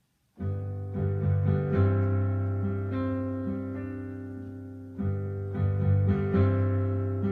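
Solo piano playing a slow instrumental introduction. It starts about half a second in, with sustained chords that slowly fade between new attacks, and a fresh chord is struck about five seconds in.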